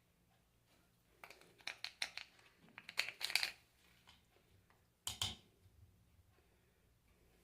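Parts of a disassembled alternator being handled on a workbench: a flurry of sharp clicks and scrapes, then a single knock about five seconds in.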